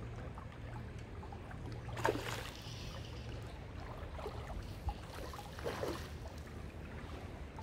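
River water running, with a steady low rumble. Three short sloshing splashes come about two, four and six seconds in.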